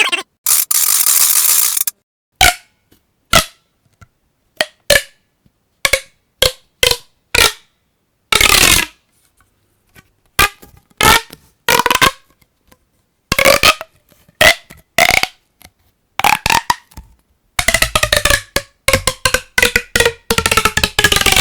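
Plastic pop tubes stretched and squeezed, giving a series of short pops, many with a brief hollow pitched tone. The pops come singly at first and bunch into quick runs near the end.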